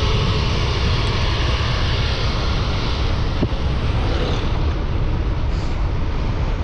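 Wind buffeting the microphone: a steady, loud rush with heavy low rumble, as on a fast ride.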